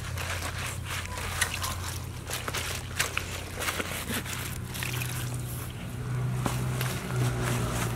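Plastic mesh scrubber rubbed over the wet skin of a whole fish lying on cardboard: irregular wet scrubbing and sloshing with scattered small clicks, over a steady low hum.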